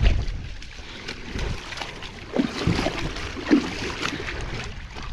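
Lake water splashing and sloshing against a kayak. There is a bump at the start and a few louder splashes in the second half.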